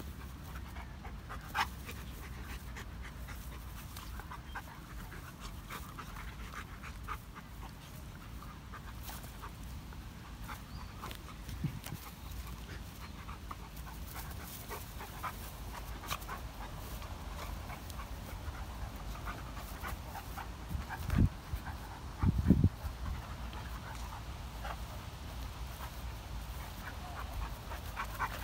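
A Dogo Argentino and a beagle play-wrestling: dog panting with scattered small clicks and scuffles, and two short low rumbles about three-quarters of the way through.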